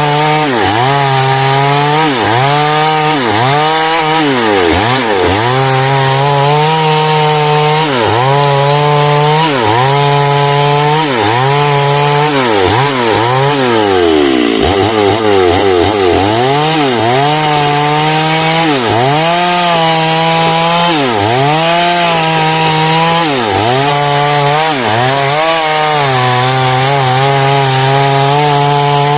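Chainsaw running at high revs while ripping heartwood timber into door-frame lumber. The engine pitch sags every second or two as the chain bites into the wood and climbs back as it frees, with one deeper drop and recovery about halfway through.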